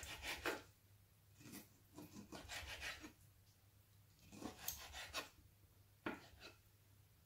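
Kitchen knife cutting raw lamb's liver on a wooden cutting board: faint scraping strokes of the blade through the liver onto the wood, in four short bouts.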